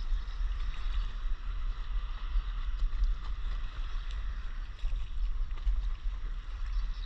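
Water lapping and trickling against a stand-up paddleboard, with wind buffeting the microphone in a steady low rumble.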